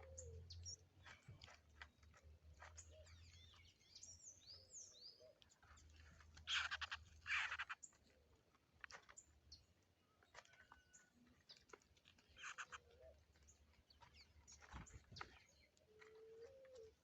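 Faint birdsong at a feeder: low, gliding dove coos recur throughout, with small birds' quick chirps and short falling whistles. Two loud rasping bursts come about six and seven seconds in.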